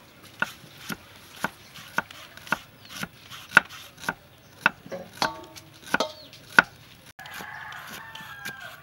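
A kitchen knife slicing shallots and striking a wooden chopping board, about two sharp knocks a second, stopping shortly before the end. Chickens call in the background, with a longer crow near the end.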